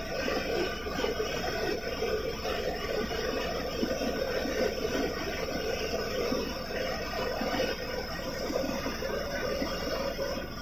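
Helicopter in flight heard from inside the cabin: the steady, unbroken drone of its engine and rotor.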